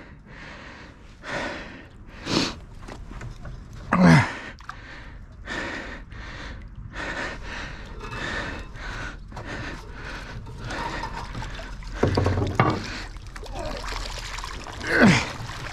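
A man breathing hard and grunting with effort as he hauls a heavy wire-mesh fish trap full of fish up out of a river, with water pouring and dripping off the mesh. Two grunts falling in pitch, about four seconds in and near the end, and a couple of sharp knocks a little after twelve seconds.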